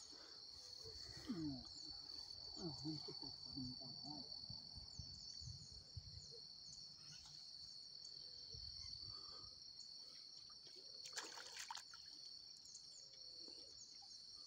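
Faint, steady high-pitched chirring of insects, with a few soft low murmurs in the first few seconds and a couple of faint clicks about two-thirds of the way through.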